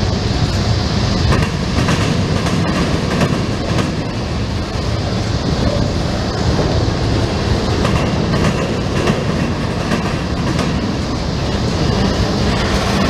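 Steel wheels of a long freight train's covered hopper cars rolling past, a loud steady rumble with repeated clicks over the rail joints.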